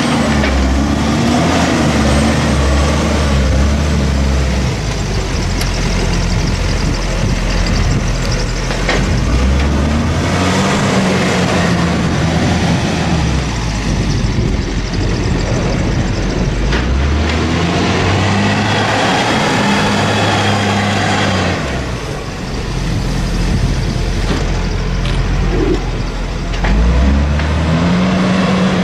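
JCB 414S wheel loader's diesel engine, revving up and easing off again and again as the loader drives up and back down the silage clamp, rolling the grass to compact it.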